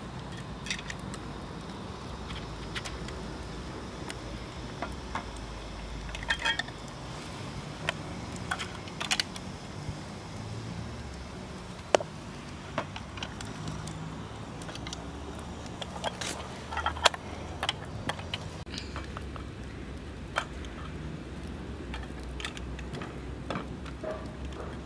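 Metal jar-lifting tongs clinking against glass jars and their tin lids in a pot of boiling water: scattered sharp metallic clinks, a few much louder than the rest, over a steady low background noise.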